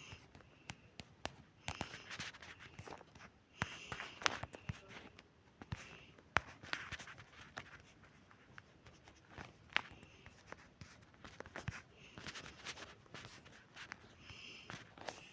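Faint, irregular clicks, taps and short scratchy rustles, scattered unevenly throughout.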